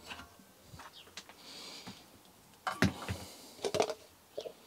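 Scattered light clicks and knocks of metal suspension parts and tools being handled at a workbench, with one louder knock about three seconds in and a short cluster of clicks just after. A brief faint hiss comes around one and a half seconds in.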